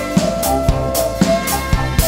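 Live band playing synth-pop: a steady drum-kit beat with the kick drum about twice a second under held synthesizer notes.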